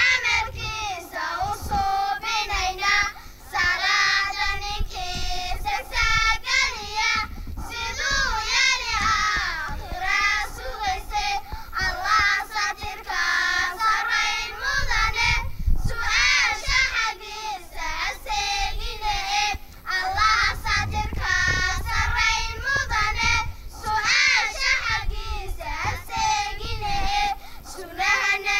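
A group of young girls singing a nasheed together in unison into microphones, with short breaks between phrases.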